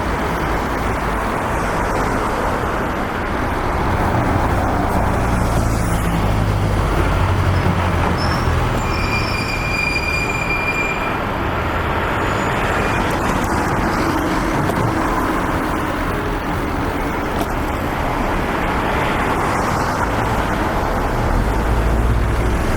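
Steady city street traffic noise: passing vehicles with a low engine rumble, and a short high-pitched squeal about halfway through.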